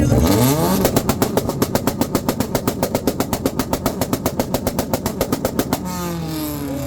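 Car engine revved up onto a two-step launch limiter, cracking and popping rapidly at about nine pops a second for about five seconds, then revs dropping away as the throttle is released.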